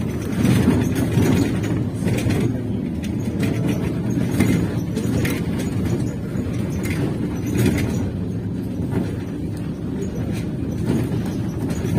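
Cabin noise of a MAZ-203 trolleybus on the move: a steady low rumble, with irregular rattles and knocks every second or two as it rides over the rough road.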